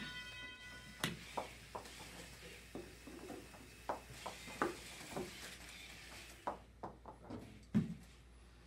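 A small competition robot driving on the field, making irregular knocks and clacks about every half second to second. A steady pitched tone with overtones sounds for about the first second, then stops.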